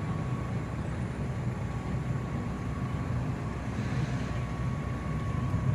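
Steady outdoor background rumble, heaviest in the low end, with a faint steady high tone held above it.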